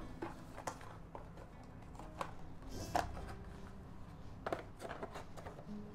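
Handling and rustling of packaging as a souvenir is slid back into its packet, with scattered small clicks and knocks, a sharper one about three seconds in.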